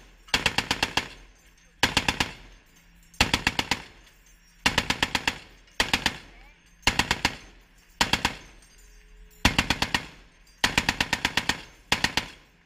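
M2 Browning .50 caliber heavy machine gun firing about ten short bursts of several rounds each, one burst every second or so, with brief pauses between them.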